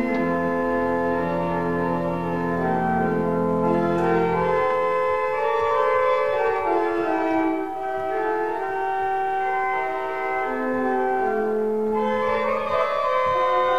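Church organ playing slow, sustained chords. Low bass notes sound under them for the first few seconds, then stop, and the upper chords carry on.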